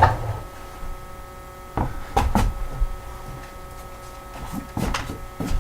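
Scattered sharp knocks and clacks: three close together about two seconds in and two more near the end, over a faint steady hum.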